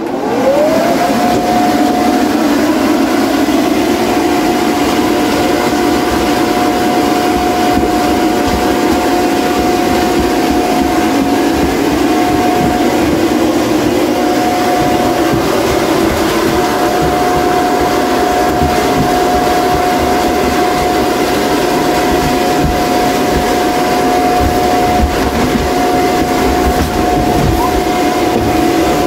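Electric blower of an inflatable bounce house switching on, its motor whine rising in pitch over about a second as it spins up, then running steadily with a constant whine and a rush of air.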